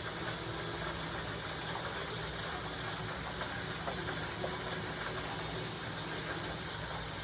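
Steady low mechanical hum with a constant hiss, like a small motor running.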